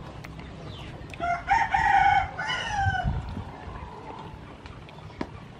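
A rooster crowing once, starting about a second in and lasting under two seconds, its call dropping in pitch at the end.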